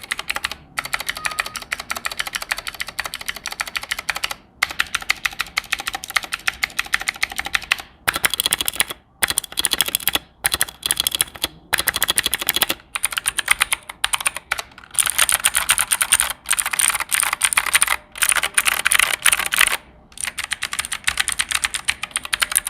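Typing on a Dark Alien K68 65% hot-swap mechanical keyboard fitted with clicky blue switches: runs of fast key clicks broken by short pauses every second or two.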